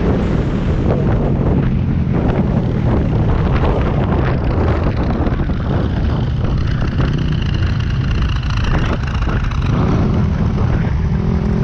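Yamaha WR250X single-cylinder four-stroke engine running steadily at cruising speed, heard from on the bike with wind rushing over the microphone. The engine note grows stronger near the end.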